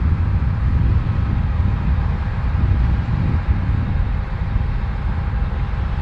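New Holland combine harvester running steadily while harvesting: a deep, even rumble with a faint steady whine over it.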